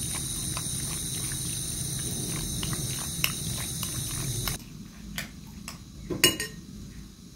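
Hands squishing and turning raw chicken pieces with spices in a glass bowl: soft wet squelching with many small ticks, ending about four and a half seconds in. A sharp clink with a brief ring comes near the end.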